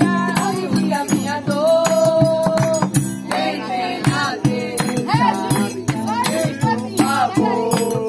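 Music: a singing voice over steady low notes, with rattling, shaker-like percussion.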